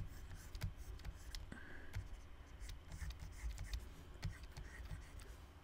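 Stylus drawing on a graphics tablet: light scratching strokes and small taps of the pen tip, faint and irregular.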